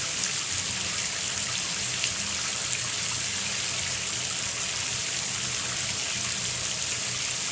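Shower running steadily: an even hiss of water spray.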